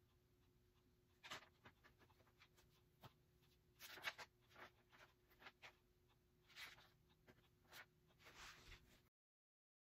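Faint rustling and crinkling of paper instruction sheets being handled and unfolded, in scattered short bursts, cutting to dead silence near the end.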